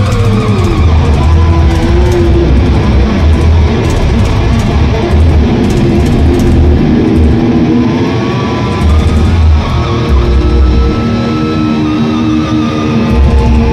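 Thrash metal band playing live at high volume, heard from within the audience: distorted electric guitars holding and sliding notes over heavy bass and drums.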